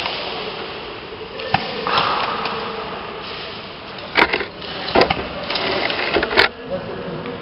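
Airsoft skirmish: about half a dozen scattered sharp clacks of shots and BB hits, most of them bunched in the second half, over a steady rushing background.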